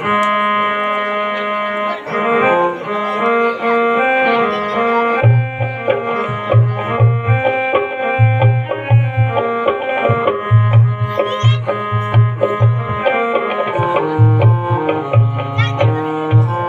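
Instrumental music: a melody of held notes, joined about five seconds in by a steady, repeating drum beat.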